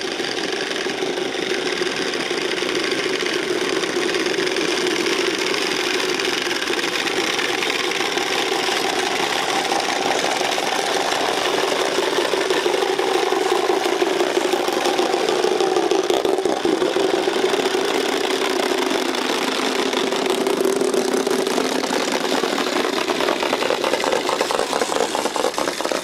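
Wooden Easter rattles (Klappern) being cranked together in a fast, continuous clatter.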